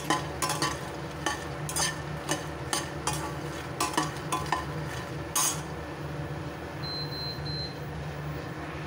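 Steel spatula stirring and scraping makhana (fox nuts) dry-roasted without oil in a stainless steel kadai, the crisp seeds rattling against the metal. The clicks come thick for about the first five seconds, then thin out over a steady low hum. Three short high beeps sound about seven seconds in.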